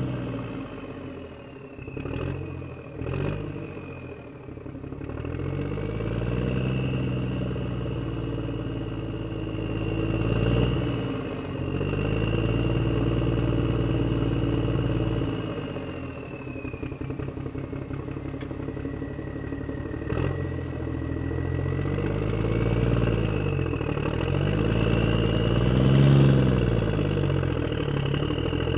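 A small vehicle engine running and moving, its pitch rising and falling as it speeds up and eases off, with the strongest rev near the end. There are a few sharp clicks about two to three seconds in.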